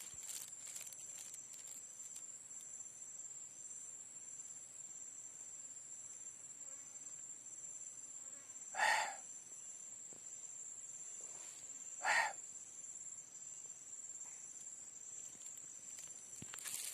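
Steady high-pitched insect chirring of forest crickets or cicadas, with two short, louder calls about three seconds apart, around halfway through the stretch.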